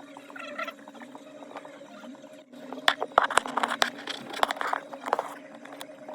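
Sharp clicks and taps of small tools handling a phone during a repair, over a steady low hum. The clicks come thickest and loudest about halfway through.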